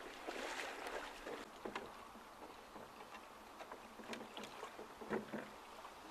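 Faint water lapping against small sailing dinghies, with scattered small clicks and knocks and one louder knock about five seconds in.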